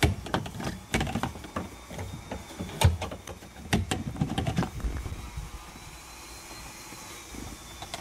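Irregular clicks, knocks and rubbing of plastic B-pillar trim and its weather strip being worked loose by hand in a 2016 Honda Civic. They are busiest in the first five seconds, with the sharpest knock a little before three seconds in, then they thin out.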